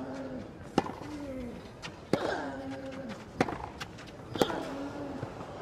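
Tennis ball struck back and forth in a clay-court rally, a sharp racquet hit about once a second. Short, falling grunts from the players come just after several of the shots.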